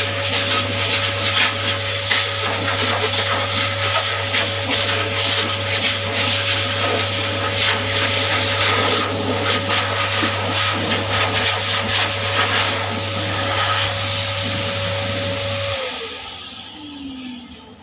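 Pet grooming high-velocity dryer blowing through its hose, a loud steady rush of air with a steady motor whine. Near the end it is switched off: the whine slides down in pitch as the motor winds down and the noise fades.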